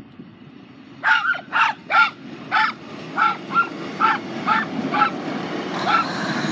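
A dog barking repeatedly, about eleven short barks in five seconds, over a low rumble that grows steadily louder.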